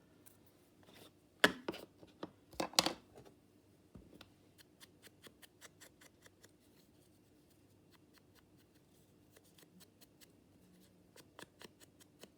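Paper-crafting sounds: two louder knocks and rustles about a second and a half and three seconds in, then a run of light, fairly even clicks and taps that thin out toward the end.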